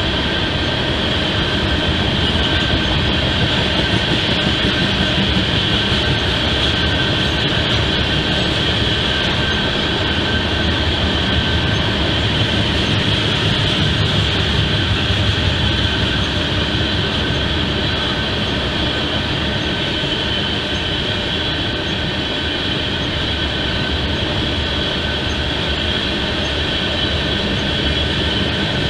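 Freight train of tank cars rolling past on the tracks: a steady, loud rumble of wheels on rail, with a steady high-pitched whine over it.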